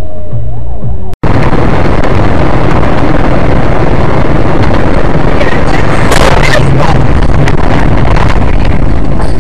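Loud, heavily distorted car noise, a dense rushing din that starts abruptly about a second in after a brief cut.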